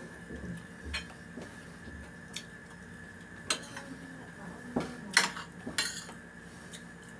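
Ceramic plates and a spoon clinking against each other and on a glass tabletop during a meal: a few scattered short clicks, the loudest about five seconds in.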